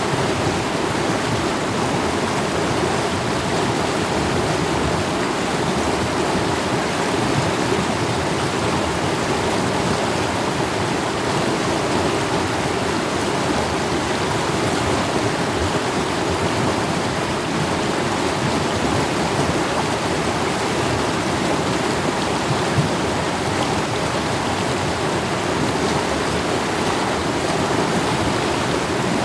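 Mountain stream water rushing and splashing over rocks, a steady even flow.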